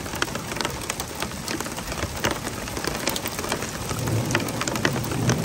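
Heavy rain mixed with hail coming down on a flooded street: a steady hiss of rain on water and pavement, with many sharp ticks of drops and hailstones striking.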